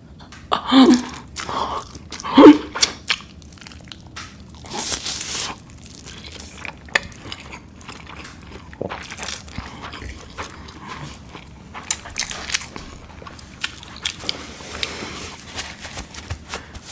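Close-up eating sounds: big bites and chewing with wet mouth clicks, the loudest bites about a second and two and a half seconds in.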